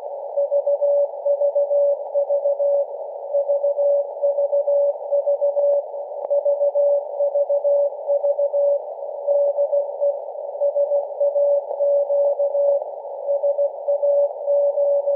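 Morse code from SAQ Grimeton's Alexanderson alternator transmitter on 17.2 kHz VLF, received on a software-defined radio and heard as a keyed mid-pitched tone. The dots and dashes sound over a narrow band of receiver hiss.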